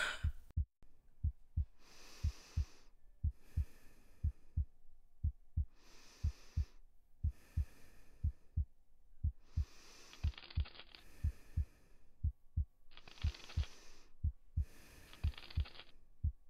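A steady heartbeat, a low double thump about once a second, with heavy breathing swelling in and out over it. A loud sharp breath cuts off about half a second in.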